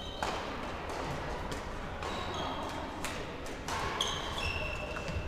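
Badminton rackets striking a shuttlecock, several sharp pops echoing in a large sports hall, with sneakers squeaking briefly on the court floor.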